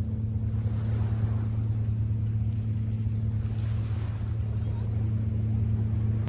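Steady low engine drone over the wash of small waves and wind on the microphone; the drone cuts off suddenly at the end.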